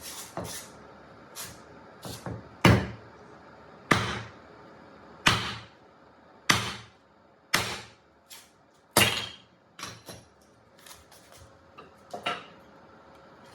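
Repeated hand-hammer strikes, about one every second and a quarter, each a sharp knock with a short ring. After about six strong blows, lighter taps follow near the end.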